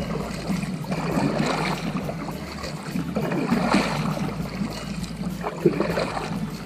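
Kayak paddling: a double-bladed paddle dipping and pulling through the water, with splashing and dripping from the blades.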